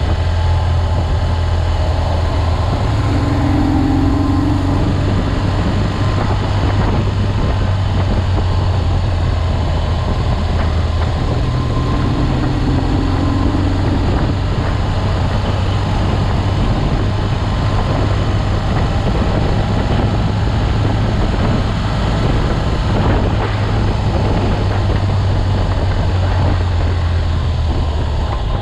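BMW R 1200 GS boxer-twin engine running steadily at road speed, with wind and road noise over it.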